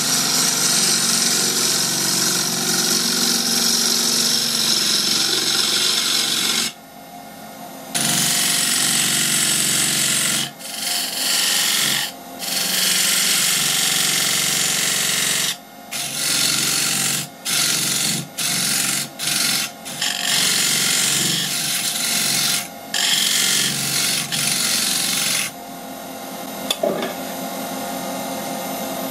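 Lathe tool cutting a spinning mulberry blank: a loud continuous hiss of the cut, then from about eight seconds a run of short cutting passes with brief pauses between them. Near the end the cutting stops and only the lathe running steadily remains.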